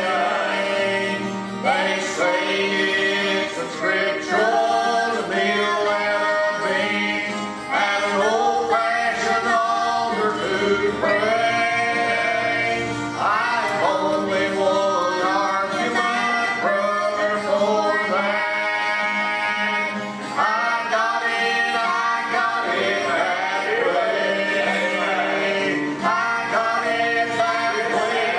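A man and a woman singing a gospel song together, accompanied by a strummed acoustic guitar.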